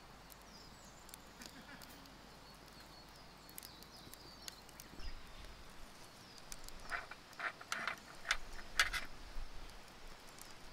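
Metal fire tongs tapping and clinking against a small metal dish as something charred from the stove is set down on it, a quick cluster of sharp taps near the end, over faint scattered clicks and light high chirps.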